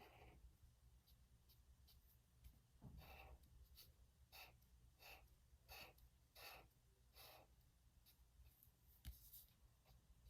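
Faint scratching of a broad-tip marker stroking across paper as an area is coloured in, about one short stroke every two-thirds of a second, over a low steady hum.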